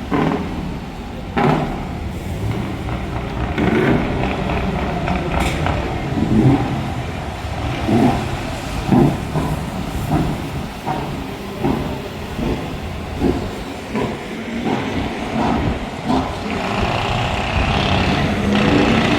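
Large truck's V8 engine with open exhaust pipes running loudly, blipped up in a string of short revs every second or two.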